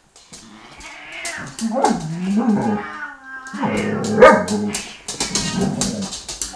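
Dogs growling and yipping during rough play-fighting with a cat, over scuffling and clicks of paws and bodies. There are wavering whines about two seconds in, then a steady held growl through the second half.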